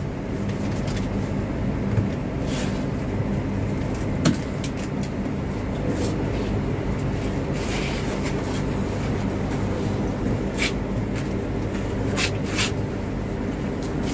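Hino RK8 coach's diesel engine running steadily under way with road noise, with a few short knocks and rattles here and there.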